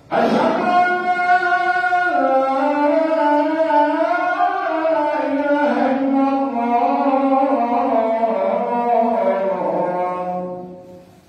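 A man's voice sings one long, ornamented phrase of the Islamic call to prayer (adhan) in the Tunisian melodic modes (tubu'). The phrase starts abruptly, winds up and down in pitch, and fades out near the end.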